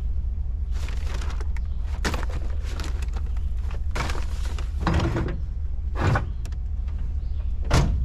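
Truck driving: a steady low rumble of engine and road, broken by a string of short knocks and rattles every second or two.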